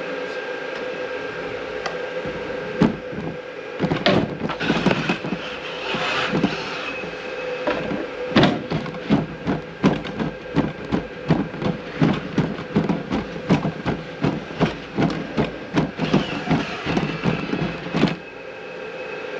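Boston Dynamics Spot robot dog working: a steady motor and fan whine, knocks as its arm works the door open, then regular taps of its feet about two a second as it walks through, until the hum drops near the end.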